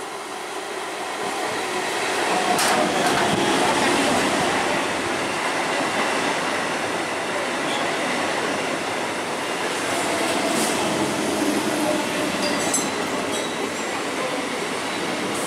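Old EMU local train running past at speed: a steady rush of wheels on rail and coaches rolling by, growing louder over the first couple of seconds and staying loud, with a few sharp clicks as the wheels pass.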